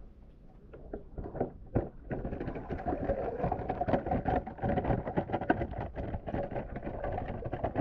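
Water pouring and splashing out of the slits of a plastic-bottle shrimp trap as it is lifted out of shallow water, a dense patter starting about two seconds in. Before that there are a few muffled knocks.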